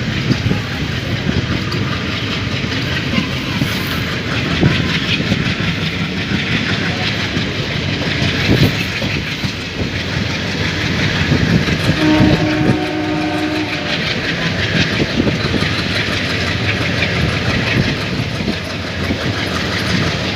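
Passenger train running on rails, heard on board: a steady rumble with irregular clatter from the wheels over rail joints. About twelve seconds in, a train horn sounds once, a steady tone lasting under two seconds.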